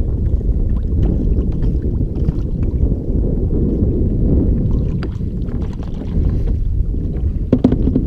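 Wind buffeting the microphone as a loud, low rumble, with a few faint splashes of water at the kayak's side.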